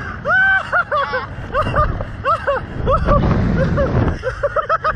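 A rider laughing and squealing in quick, high-pitched bursts, several a second, with wind buffeting the microphone as the slingshot ride's capsule swings. The wind rumble swells for about a second in the middle.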